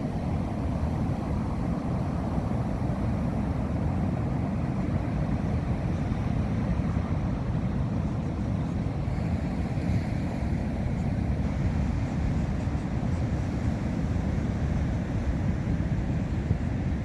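Ocean surf breaking and washing onto a sandy beach: a steady low rush of waves.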